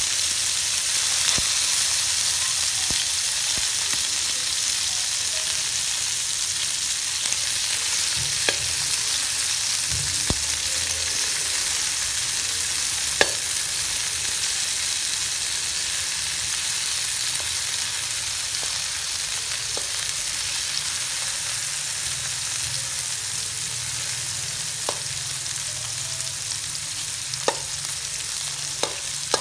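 Tomato wedges sizzling in hot oil in a wok, a steady high hiss, with a few single sharp clicks now and then.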